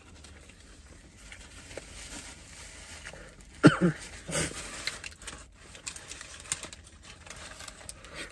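Chewing a burger, with paper napkin and wrapper rustling. A short hum-like voice sound comes a little past the middle.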